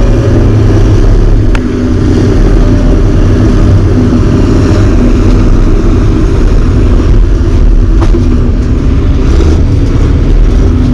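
Heavy diesel equipment engine running steadily and loud close by, a deep, even engine note with no change in pace.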